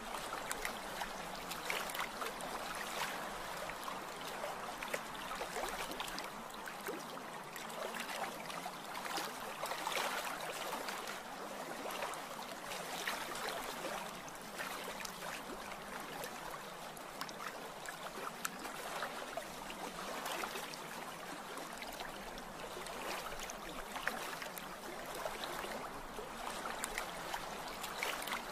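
Steady running water: a continuous rush dotted with many small splashes and trickles.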